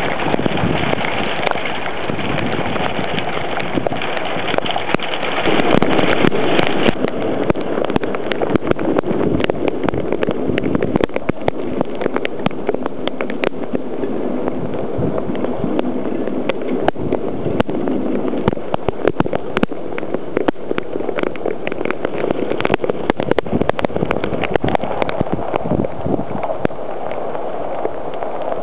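Heavy rain in a thunderstorm, with wind, making a loud, dense rush of noise. Many sharp ticks of drops strike close to the microphone throughout.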